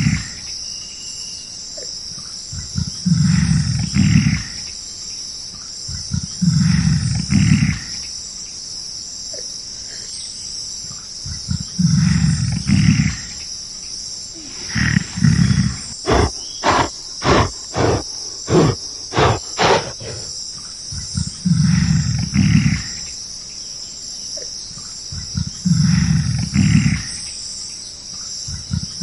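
Deep calls from a large animal, repeating every few seconds, with a run of about eight short grunts in quick succession near the middle, over a steady high-pitched insect chorus.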